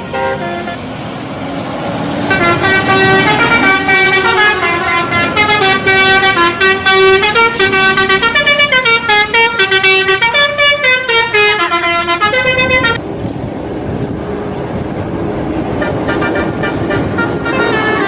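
Indonesian bus 'telolet' horn, a multi-tone air horn, playing a quick stepping melody from about two seconds in until it cuts off about thirteen seconds in. Steady bus and road noise is heard before and after it.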